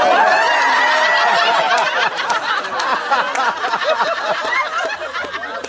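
Theatre audience laughing and calling out together, loudest at the start and slowly tapering off.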